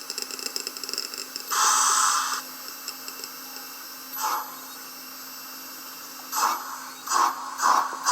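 Sound decoder of a Lenz O gauge DB class 86 model steam locomotive playing steam sounds through its speaker: a short burst of steam hiss, then exhaust chuffs, one about four seconds in and then several from about six seconds in, coming closer together as the loco starts moving, over a steady low hum.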